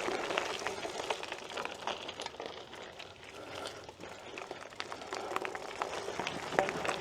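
Irregular crunching and small clicks of movement over a rocky dirt trail, getting slightly quieter in the middle and picking up again toward the end.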